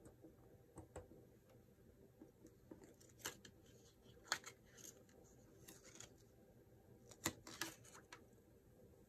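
Near silence with scattered light clicks and taps from handling an airbrush and a clear plastic template, the sharpest about four seconds in and again near the end.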